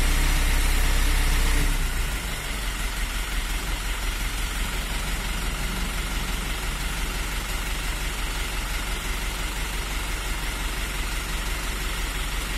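Bucket-lift truck's engine running with a steady hum that drops away about two seconds in, leaving the engine idling with a fast, even low throb.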